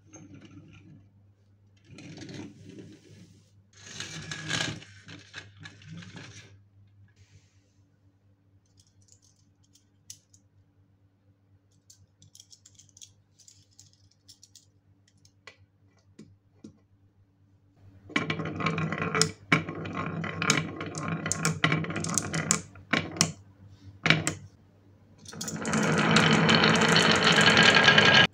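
Clicks and rattles of small toy vehicles being handled and set down on a table, then a long quiet stretch. From about two-thirds of the way in come bursts of clicking and rattling, and near the end a loud, steady clatter of many balls rolling down a carved wooden zigzag slope.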